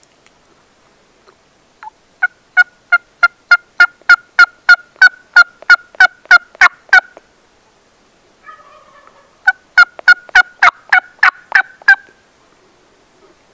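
Turkey yelping: a long run of sharp, evenly spaced yelps, about three a second, then a brief softer, rougher sound, then a second shorter run of yelps.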